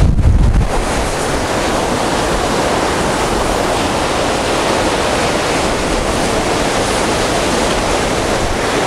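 Heavy storm surf breaking on the shore in a continuous, even rush of noise. A short gust of wind buffets the microphone at the very start.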